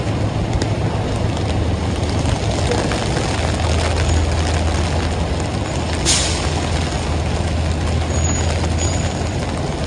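Heavy rain falling in a city street with traffic, a steady dense hiss over a low engine rumble. A short, sharp hiss cuts through about six seconds in.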